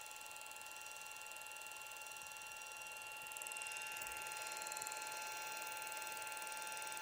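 The small internal cooling fan of a DJI Phantom 4 Pro drone running nonstop, a steady whine of several fixed tones over a hiss that grows a little louder about three seconds in. The owner takes the fan that never stops as a suspicious fault on a new drone.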